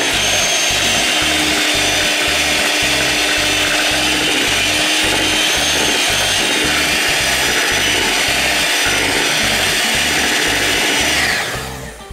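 Vitek electric hand mixer running steadily at speed, its beaters churning flour into thick kefir pancake batter in a bowl. Its whine falls away as it is switched off near the end.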